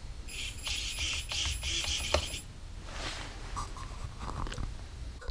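Electric nose landing gear of an RC jet running under radio control: its gear motor or servo whirs for about two seconds, ending in a sharp click, followed by fainter handling noises.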